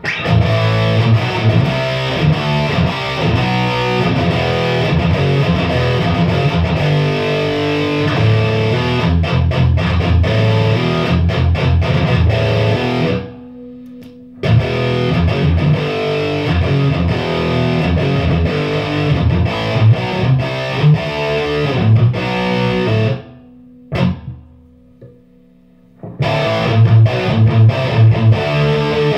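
Peavey 5150 tube amp head, modded with the 120-watt Metal Mod, driving a Marshall cabinet: a high-gain distorted electric guitar playing fast metal riffs. The playing stops twice for a second or two, leaving only a faint steady hum.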